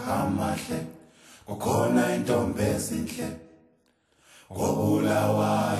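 Low voices chanting a cappella, in phrases of about two seconds with short pauses between them.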